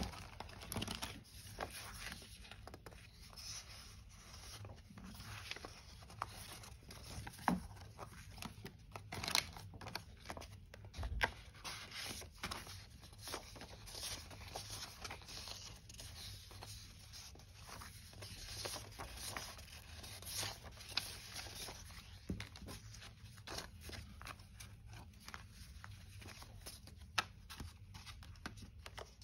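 Rustling and crinkling of paper and plastic as hands handle banknotes and clear-plastic-sleeved sticker sheets, with many small taps and clicks.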